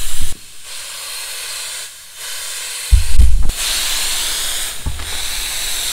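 Hopper-fed air spray gun on compressed air, spraying bedliner with a steady hiss. The trigger is pulled in several passes, with brief stops between them. A short low rumble comes about three seconds in.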